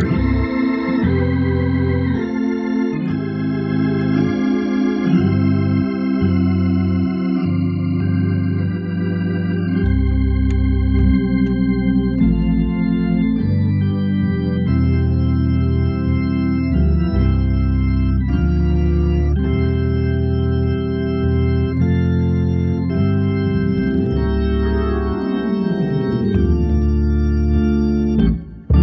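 Hammond organ playing a slow gospel piece in sustained chords over a full bass line, the chords changing every second or so. It cuts out briefly near the end.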